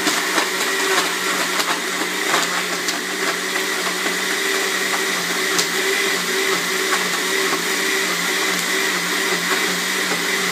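Hamilton Beach countertop blender running steadily, its motor whirring as it blends a shake of almond milk, soy ice cream, carrots and ice, with scattered small ticks from bits knocking in the jar.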